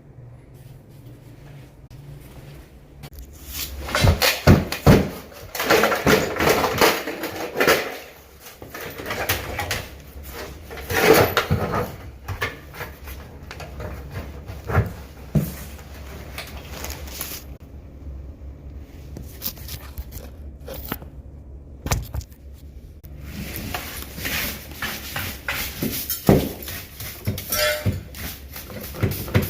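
Irregular knocking, clattering and rustling from parts being handled and worked on, with sharp clicks and bumps, busiest from about four to eight seconds in and again around eleven seconds.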